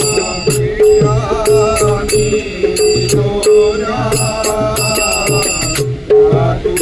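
Instrumental interlude of a Marathi bhajan in raag Bhairavi: a wavering melody over a steady held note, with regular drum beats and sharp, ringing metallic cymbal strokes keeping a quick, even rhythm.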